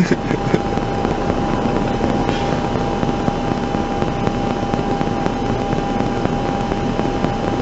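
Steady rush of traffic passing on a wet, slushy interstate, with a thin steady tone beneath it.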